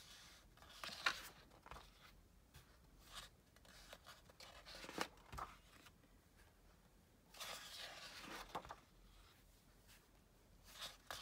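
Faint rustling and sliding of printed paper sheets being turned over by hand, in a few short bursts with quiet gaps between, the longest near the middle.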